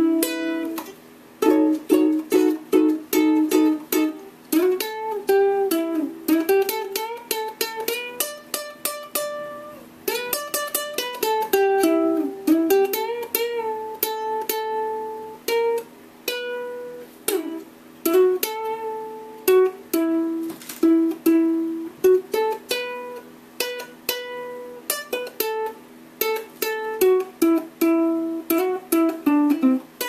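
Solo ukulele playing an instrumental blues passage, mixing picked melody notes with strummed chords, with brief pauses about a second in and about ten seconds in.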